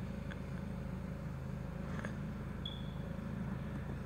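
Car engine idling steadily, heard from inside the cabin, with a couple of faint clicks and a brief high chirp about two and a half seconds in.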